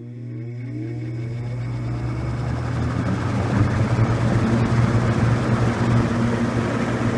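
1950s Roto-Aire 07104 seven-wing box fan starting up on high: a steady motor hum with whining tones that rise in pitch as the blade spins up, swelling into a steady rush of air that levels off about three and a half seconds in.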